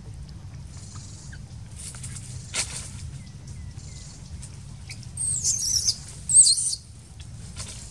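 Infant long-tailed macaque crying: two shrill, wavering squeals about five seconds in, the second shorter and louder.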